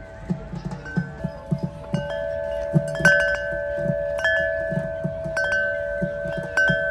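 Chimes ringing: repeated metallic strikes with long lingering tones that overlap and build up over the seconds.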